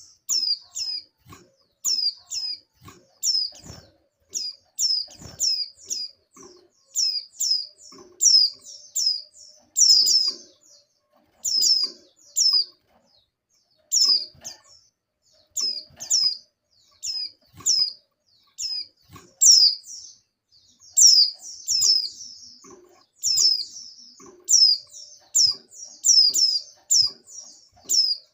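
Female white-eye (pleci) in breeding condition calling to males: short, high chirps that drop in pitch, given in quick clusters of two to four notes about once a second.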